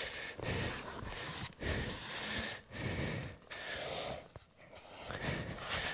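Snow being brushed and scraped off cabin panels by hand in short, irregular strokes, with a couple of light knocks.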